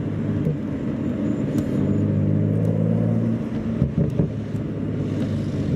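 BMW N55 turbocharged straight-six, running an MHD Stage 2+ tune, driving at light throttle as heard from inside the cabin. The engine note steadies and grows stronger about a second and a half in, breaks off briefly near four seconds, then carries on.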